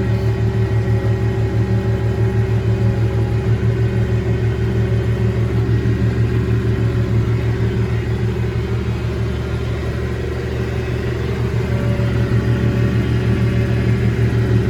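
Massey Ferguson 1105 tractor's six-cylinder diesel running steadily under load at slow ground speed, driving a John Deere 335 round baler as it picks up hay.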